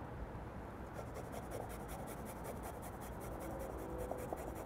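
A garlic clove being grated on a stainless-steel microplane rasp: a fast, even run of light scraping strokes that starts about a second in.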